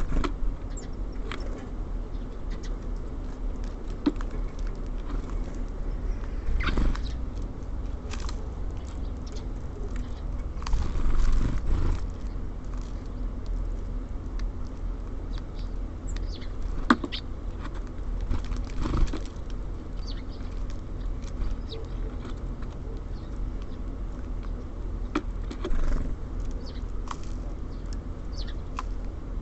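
Small birds at a feeder: scattered sharp taps and clicks with short high calls, over a steady low rumble of city background noise. A louder rush of noise swells and fades about eleven seconds in.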